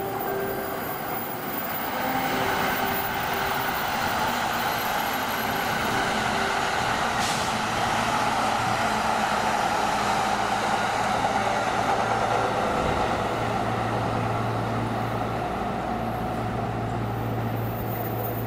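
Electric train running through a station: a steady rushing rumble that builds over the first couple of seconds, with a low motor hum joining about eight seconds in. A few short chime-like tones sound faintly during the first few seconds.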